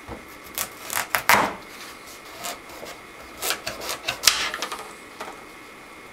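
Kitchen knife cutting through a raw butternut squash on a cutting board: irregular scraping, crunching strokes and knocks of the blade on the board, in two busy spells about a second in and around four seconds in.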